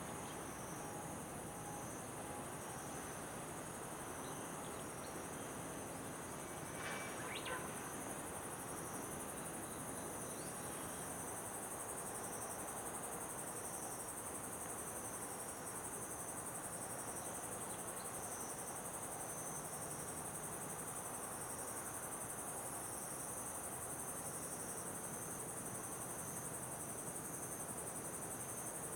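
Crickets chirring steadily, a rapid pulsing chirp with a continuous high buzz above it. A brief faint chirp stands out about seven seconds in.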